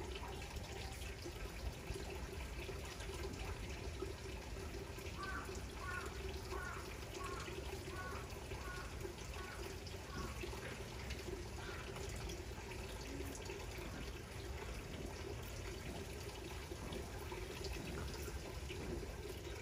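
Steady noise like running water, with a run of about eight short, high chirps spaced under a second apart in the middle.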